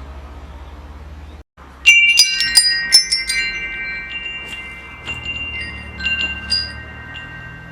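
Metal wind chimes struck in a cluster about two seconds in, several tones ringing on and slowly fading, with a few lighter strikes later. A low rumble runs underneath and cuts out briefly just before the chimes.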